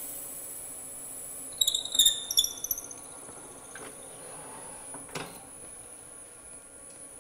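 Woodturning lathe running with a steady hum and high whine while a drill bit bores into a kingwood pen blank. About one and a half seconds in, a short burst of sharp, high-pitched squeals comes from the bit in the wood, then a single knock about five seconds in.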